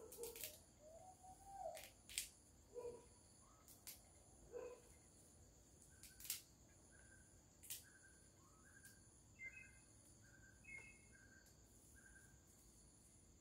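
Faint, sharp snaps of rice paddy herb (phak kayaeng) stems being broken off by hand, one every second or so through the first eight seconds. A soft, evenly repeated chirping runs under them in the second half.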